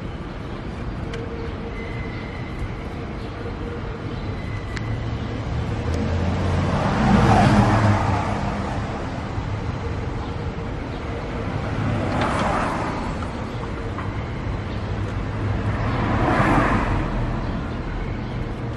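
Road traffic going by: three vehicles pass, each swelling and fading over about two seconds, roughly seven, twelve and sixteen seconds in, over a steady low hum.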